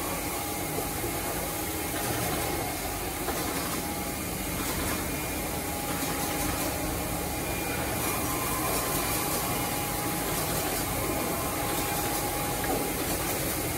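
CNC wood-cutting saw machine running steadily: a continuous mechanical hum and hiss with a faint steady whine.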